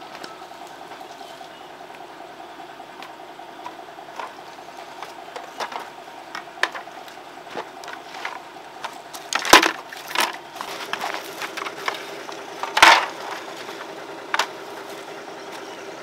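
A small engine running steadily, with a few sharp knocks over it, mostly in the second half.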